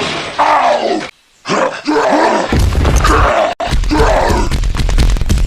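A voice making several short sounds with bending pitch and no clear words, over a low rumble that starts about halfway through.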